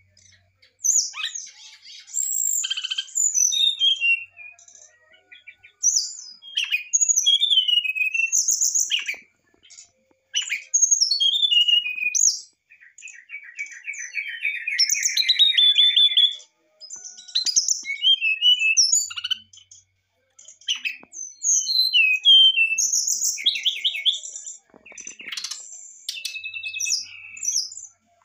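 Brown-chested jungle flycatcher singing: a run of high, varied whistled phrases separated by short pauses, with a longer rapid trill about halfway through.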